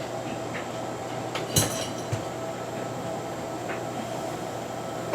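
Loose metal screws from a ceiling fan clinking in a container as they are put away. There is one sharp metallic clink about a second and a half in and a softer knock shortly after, over a steady background hum.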